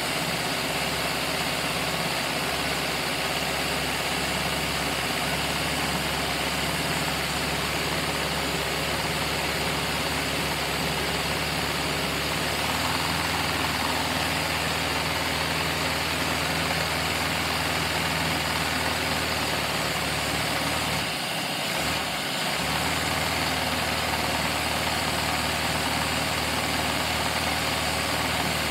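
Lego V8 vacuum engine running steadily under suction, a continuous rush of air with a mechanical hum as it drives the crusher. Its pitch shifts slightly about halfway through, and the sound dips briefly for about a second later on, as if under load.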